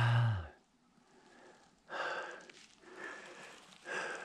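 A short voiced sound at the start, then a person breathing heavily, with breathy hisses about once a second.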